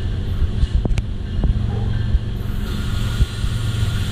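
Slow freight train passing below: a steady low rumble from the diesel locomotive and rolling cars, with a few sharp clicks.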